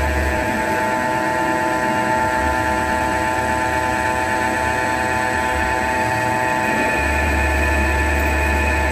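CNC turning lathe running while it cuts a metal bar: a steady whine from the spindle and drives throughout. A low hum drops away about half a second in and comes back about seven seconds in.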